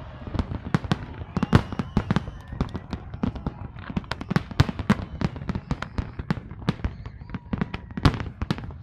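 Fireworks display going off in a rapid, irregular barrage of bangs and cracks, several a second, with some louder booms among them.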